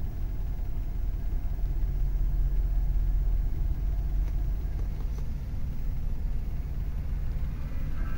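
Ram 2500 pickup engine idling, a steady low rumble heard inside the cab.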